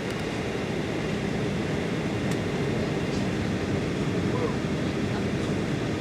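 Steady low roar inside the passenger cabin of a Boeing 737-800 jet airliner on final approach, just before touchdown, with a faint click about two seconds in.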